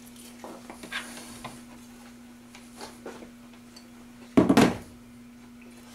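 Kitchen handling noise: a steady low hum with a few faint clicks and taps, then one short, loud clatter about four and a half seconds in.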